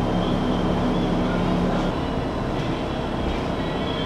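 Steady running noise inside a Tatra T4SU tram car, a mix of rumble and hiss. A low hum in it drops out about two seconds in.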